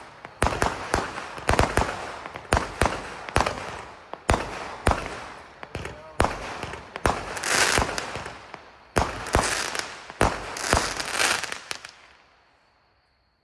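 A 64-shot fireworks cake with 0.6-inch tubes firing a rapid series of sharp bangs, several a second, each trailing off. The shots stop about a second before the end and the sound dies away.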